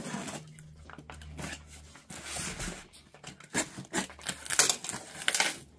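A box cutter slicing through packing tape on a cardboard box, with the tape ripping and the cardboard flaps rustling in a series of short scrapes and tears.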